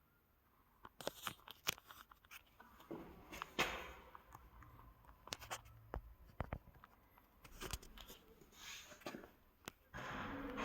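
Scattered clicks, scrapes and rustling from things being handled and moved, with a longer rustle near the end.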